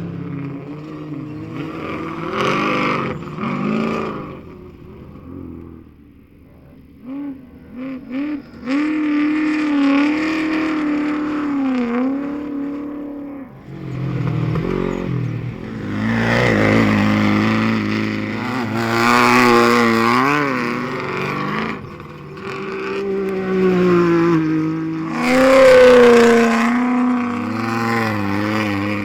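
Off-road race vehicles' engines revving and passing one after another, the pitch climbing and dropping with throttle and gear changes. It goes quieter briefly about a fifth of the way in, and the loudest pass comes near the end.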